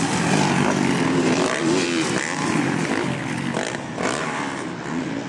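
Motocross bike engines racing, revving up and down in pitch, with more than one bike heard at once.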